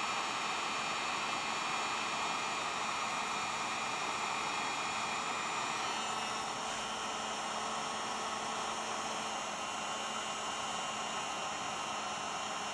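Electric heat gun blowing steadily as it shrinks heat-shrink tubing onto a crimped copper battery cable lug, a steady rush of hot air with a motor hum; the noise drops slightly about six seconds in.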